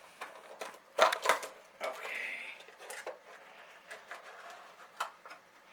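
Small plastic collectible figures and their packaging being handled: a run of light clicks and clatters, loudest about a second in, with a short rustle of plastic a little after two seconds.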